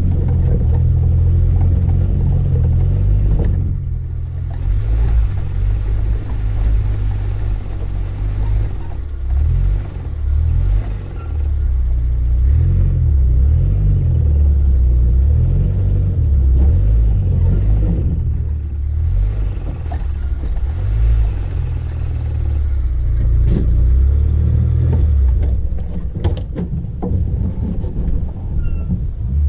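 Off-road vehicle's engine running at low speed while crawling up a rocky dirt trail, a steady low rumble that swells and dips with the throttle. Scattered clicks and knocks run through it, with a quick cluster of sharp knocks near the end.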